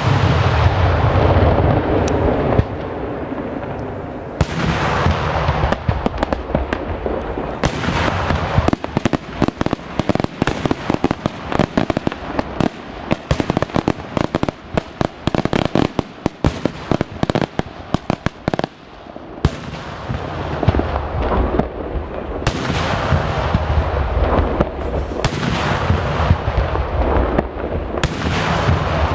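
Daytime aerial firework shells bursting in loud explosions. From about eight seconds in, a rapid string of many sharp reports runs for some ten seconds, then more big explosions follow toward the end.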